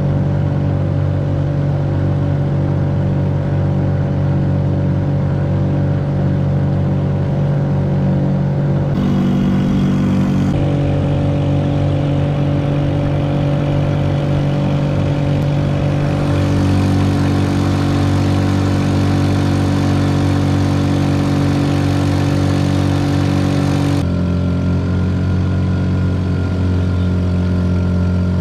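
Honda Supra 125 motorcycle engine, converted to drive a small boat, running steadily at high revs under way. Its tone changes abruptly a few times but never rises or falls in pitch.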